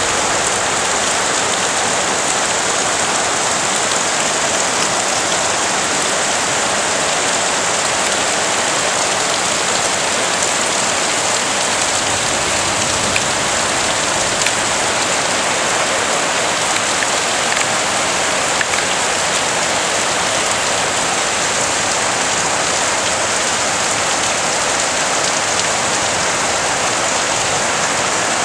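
Heavy rain falling steadily on wet ground and standing water, an even downpour with a few faint louder ticks.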